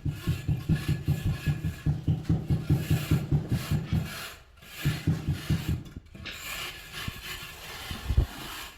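Rapid back-and-forth rubbing strokes against a hard surface, about five a second, with a short break after about four seconds. They stop about six seconds in and give way to a quieter steady scraping.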